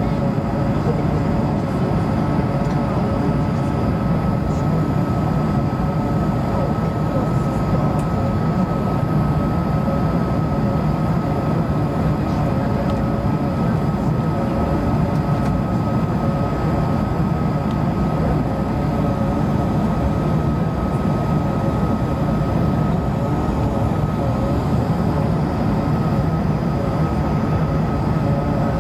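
Steady cabin noise inside a Bombardier CS100 airliner on approach with its flaps extended: the rumble of its Pratt & Whitney PW1500G geared turbofans and rushing air, with a thin steady high tone over it.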